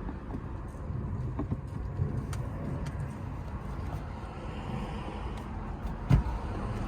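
A steering wheel being worked onto the splined steering-column shaft: a few light clicks, then a single knock about six seconds in, over a steady low hum.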